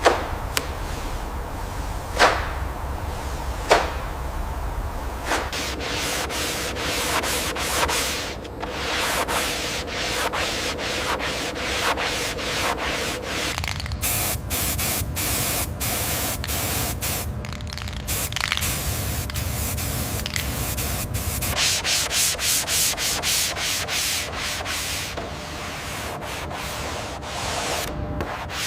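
Three sharp knocks in the first four seconds, then steady hand sanding in rapid back-and-forth strokes, about three a second, running on through the rest.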